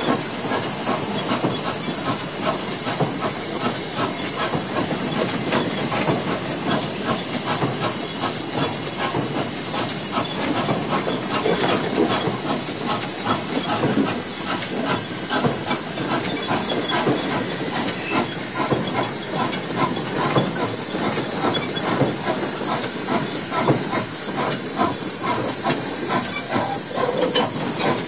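Cab of the 1901-built Pennsylvania Railroad 0-6-0 steam switcher No. 643 under way: a steady hiss of steam with constant irregular rattling and clanking of the cab and running gear.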